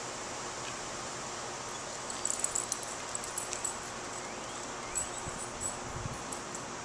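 Steady outdoor hiss with two bursts of light clinking and clicking, from a walking dog's leash and collar hardware, about two seconds in and again near the end.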